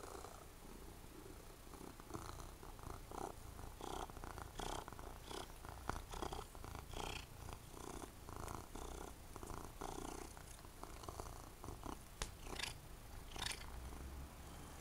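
Domestic cat purring close up in repeated pulses, with a few sharp clicks near the end.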